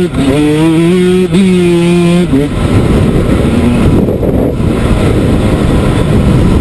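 Dirt bike engine running at high, steady revs under way, with a brief drop and recovery in its note just over a second in. About two and a half seconds in, the clear engine note gives way to a loud, rough rumble.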